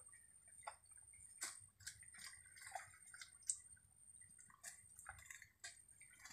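Faint wet squelching and splashing of mud and shallow water, with scattered short clicks and knocks, as people wade and scoop mud with a bucket in a drained ditch.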